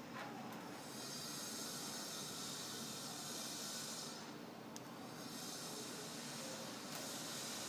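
Water boiling in a pot, a steady hissing and bubbling. The high hiss dips for a moment about halfway through and then returns, with a faint click or two.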